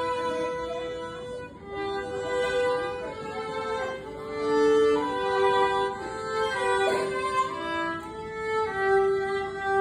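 Two violins playing a duet, held bowed notes changing about once a second, often sounding two parts at once.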